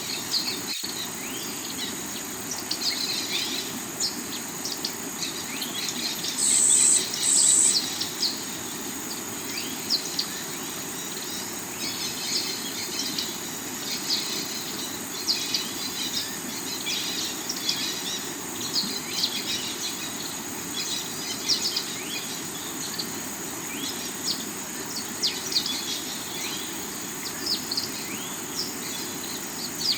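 A rocky river running with a steady rush of water, under many birds chirping and a steady high insect trill. About six and a half seconds in, two short, loud, high buzzes stand out.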